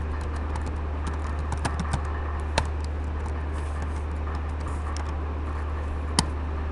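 Typing on a computer keyboard: an irregular run of light key clicks, with two sharper clicks about two and a half and six seconds in, over a steady low hum.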